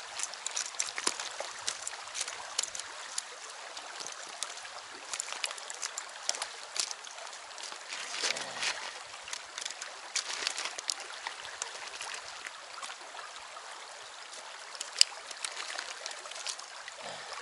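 A shallow, fast river runs steadily over stones, with irregular clicks and rattles of pebbles on the gravel bank as a freshly caught grayling is handled on the stones. There is one sharp click near the end.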